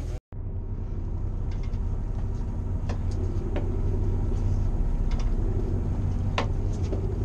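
Steady low hum of a fishing party boat's engine running at anchor, with a few sharp clicks and taps, the clearest about three and six and a half seconds in. The sound cuts out for an instant just after the start.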